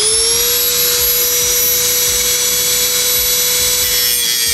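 Dremel rotary tool with a metal cut-off disc spinning at full speed, a steady high whine. Near the end its pitch sags slightly as the disc is pressed onto the metal kickstand nub.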